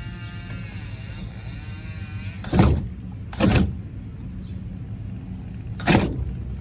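Milwaukee M18 Hackzall one-handed reciprocating saw cutting into a metal L-bracket held in a bench vise, run in three short bursts: two close together, then a third near the end.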